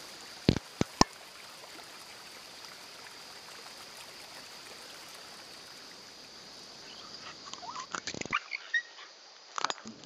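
Summer woodland ambience with a steady high-pitched insect drone. Three sharp clicks come between half a second and a second in, and a flurry of short clicks, rustles and brief chirps follows near the end.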